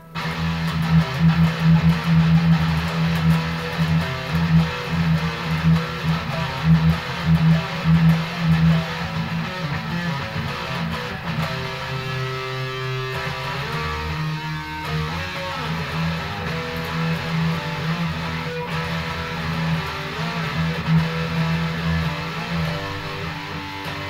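Electric guitar with an EMG 81 active humbucker through a high-gain metal distortion tone, playing a heavy rhythm riff: fast repeated low notes, with a few held notes about halfway through.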